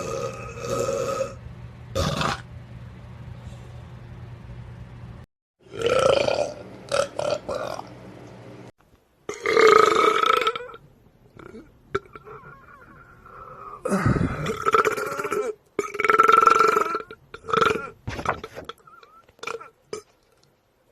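A string of human burps, several separate belches one after another, each a pitched croak lasting up to about a second and a half, with short gaps and abrupt cuts between them.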